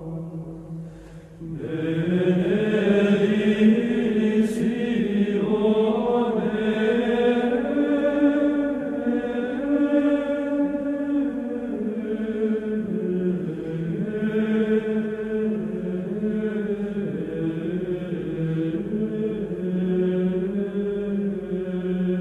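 Slow sacred chant sung by voices, long held notes moving in steps. The sound dips briefly about a second in, then swells back.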